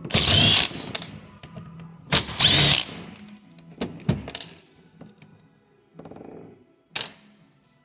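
Tools working on a plastic valve actuator: two harsh scraping, prying bursts about two seconds apart, then a few small clicks and one sharp clack near the end as the arm comes off the gear housing.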